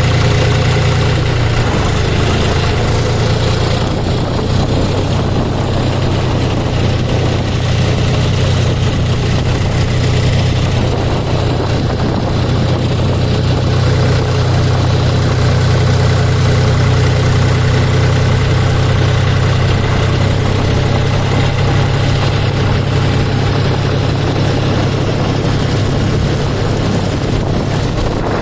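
John Deere 5045D tractor's three-cylinder diesel engine running steadily while the tractor drives along the road, heard close by from the driver's seat beside the upright exhaust.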